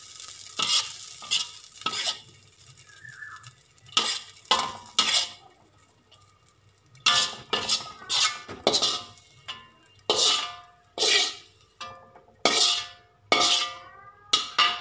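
Spatula scraping and knocking against a steel wok as fried rice is scooped out onto a plate. The strokes come in quick repeated scrapes, each ringing briefly, thicker in the second half, with a light sizzle in the first couple of seconds.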